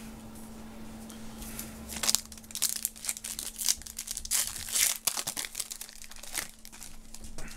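Foil wrapper of a Topps WWE Road to WrestleMania trading-card pack crinkling and tearing as it is ripped open by hand, starting about two seconds in as a run of sharp crackles.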